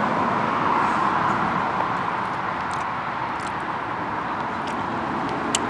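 Steady road traffic noise, slowly easing off, with a few faint clicks of a spoon against a bowl.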